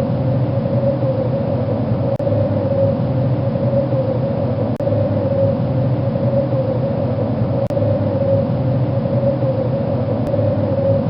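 Steady wind noise with a low rumble and a hollow, moaning tone that swells gently, with brief dips in level a few times.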